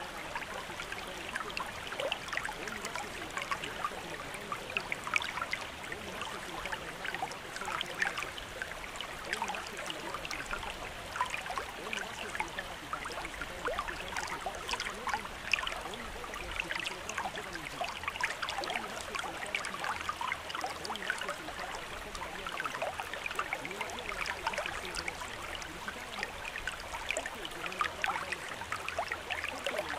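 Steady running water, trickling with a dense patter of small splashes.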